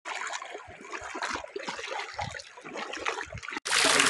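Shallow water running and trickling over a flooded concrete road, with a few soft low thumps. Near the end it cuts off sharply and a louder, steady rushing noise takes over.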